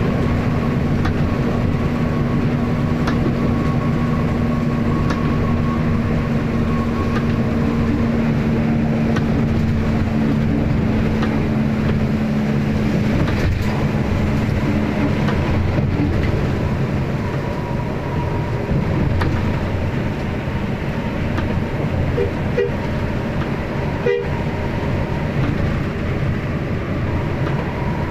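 Inside the cabin of an intercity diesel bus cruising on a wet highway: a steady engine drone with tyres hissing on the wet road. A steady hum fades away about halfway through.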